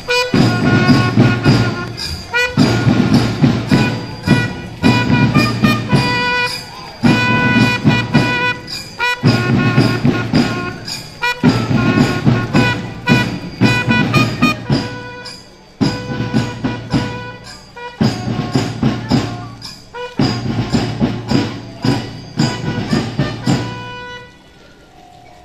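Palace-guard marching band of drums and trumpets playing a march in short phrases, breaking off near the end.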